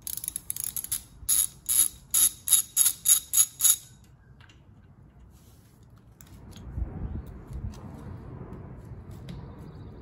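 Hand ratchet clicking in a run of quick strokes, backing out the bolt that holds the ABS sensor in a Ford 8.8 axle housing. Then a few seconds of quieter handling and rustling.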